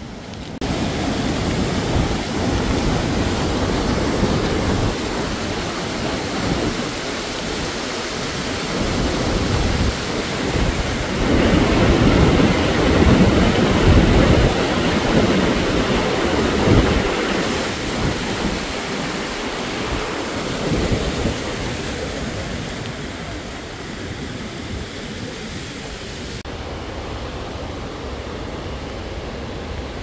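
Loud, steady rushing of a mountain river, with gusty wind buffeting the microphone; loudest around the middle. The sound thins out near the end.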